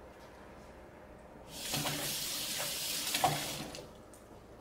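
Kitchen sink tap turned on and off, water running into the sink for about two seconds, with a few light knocks against the sink.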